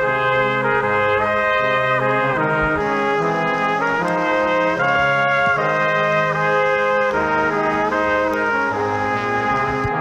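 Instrumental background music of sustained chords that move to new pitches every second or so.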